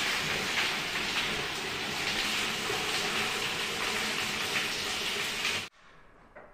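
Water leaking through the ceiling and raining down in many streams and drips, splashing steadily onto the tiled floor and walls of a toilet stall: the leak comes from a broken P-trap in the drain pipe above. It stops abruptly near the end.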